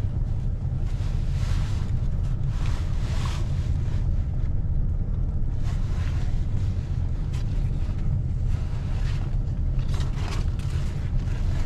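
Chevrolet pickup truck's engine idling with a steady low rumble, while a snow-covered coat and hood are pulled off and shaken at the open door, rustling in short bursts several times.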